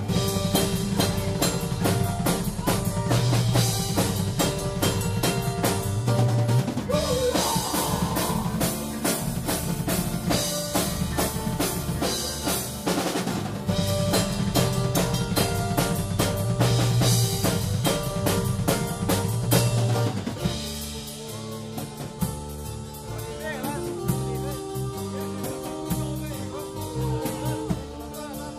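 Live band playing fast metal-tinged folk: rapid drum-kit drumming over acoustic guitar and keyboard. About twenty seconds in the drums stop and the guitar and keyboard carry on more quietly.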